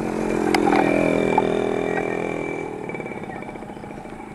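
Small motorcycle engine running steadily, loudest about a second in and then fading, with a few light clicks and clatters over it.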